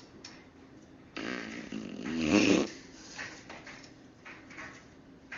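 A long, buzzy fart that starts about a second in, grows louder for about a second and a half and stops abruptly.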